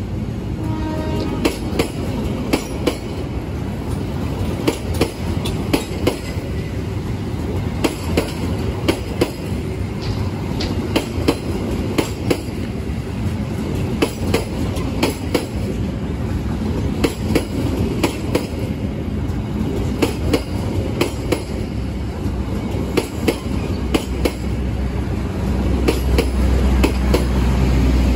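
KRL Commuter Line electric train rolling past alongside the platform, its wheels clacking over rail joints every half second to a second over a steady low rumble. Near the end a deeper, louder rumble builds as another train's cars pass on the same track.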